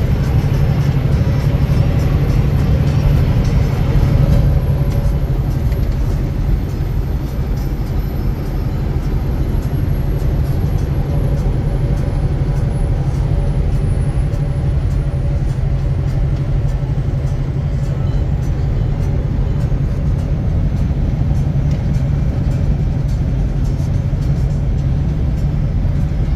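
Semi-truck cab at highway cruising speed: the diesel engine and tyre and road noise make a steady low drone. It is a little louder for the first few seconds.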